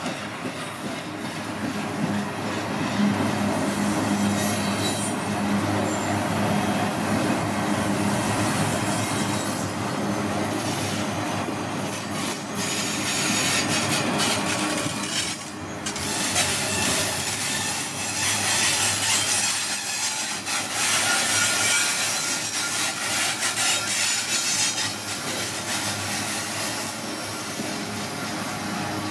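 Double-stack container freight train rolling past at close range: a steady rumble and clatter of steel wheels on the rails and of the cars, with scattered clanks. It grows harsher and higher-pitched for a few seconds about two-thirds of the way through.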